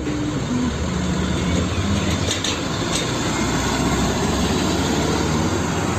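Small Hino fuel tanker truck's diesel engine running as the truck drives along the road: a steady low engine noise.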